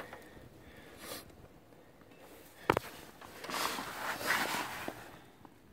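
Faint rustling handling and movement noises, with one sharp click near the middle.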